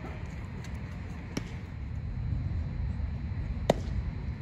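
A pitched baseball popping into the catcher's mitt: one sharp, loud smack about three and a half seconds in, after a fainter tick, over a steady low outdoor rumble.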